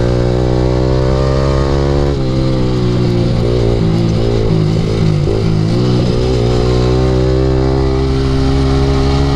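Yamaha R15 sport bike's single-cylinder 155 cc engine running through an aftermarket Akrapovic exhaust, held at steady high revs while riding, with a slight change in the note about two seconds in. Wind rush sits under the exhaust note.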